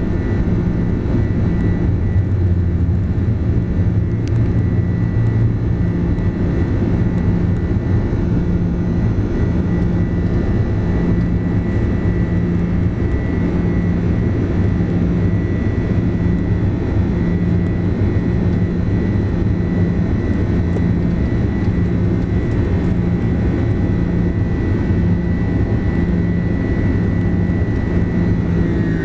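Airbus A330-200's twin turbofan engines at climb thrust heard inside the cabin: a steady loud rushing drone with a thin high whine and a slow low throb about once a second. Right at the end the whine dips a little in pitch.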